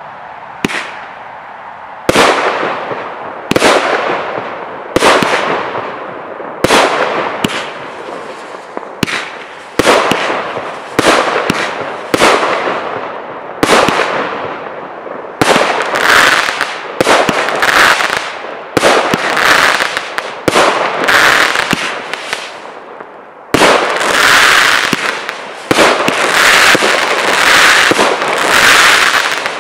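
Primed Pyrotechnics Loaded Dice, a 16-shot consumer firework barrage cake, firing shot after shot. Each shot is a sharp report followed by a fading hiss, at first about one every one to two seconds. In the second half the shots come closer together with dense crackling.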